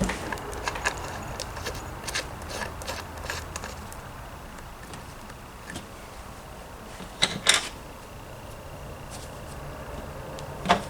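Small clicks and clinks of plastic and metal planer-board hardware (washers and fittings) being handled and tightened by hand, with two sharper knocks a little past seven seconds in.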